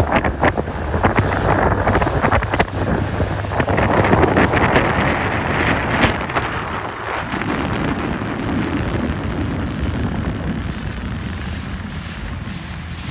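Wind buffeting the microphone over choppy water, with water splashing and rushing, gusting hard in the first half and easing toward the end.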